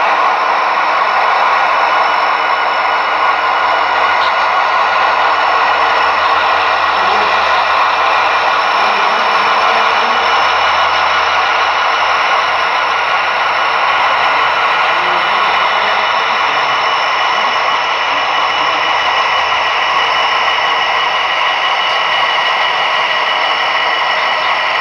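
HO scale model diesel locomotives running slowly along the track: a steady mechanical running sound with several held tones, unchanging in level.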